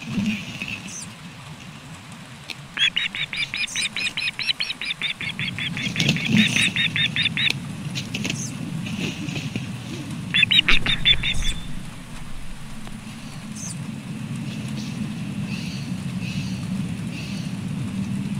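Osprey at the nest giving a rapid run of high, repeated alarm calls, about six notes a second for several seconds, then a shorter burst a few seconds later. A steady low wind rumble on the nest-cam microphone runs underneath.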